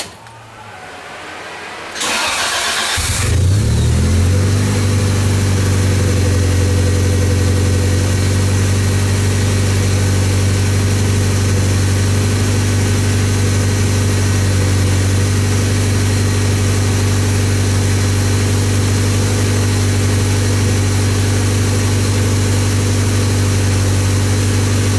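Honda Civic engine cranked by the starter for about a second, catching about three seconds in and settling straight into a steady idle.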